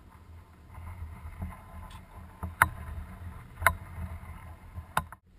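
Helmet-mounted rotating camera rig spinning, heard from the camera itself: a steady low rumble with sharp clicks about once a second.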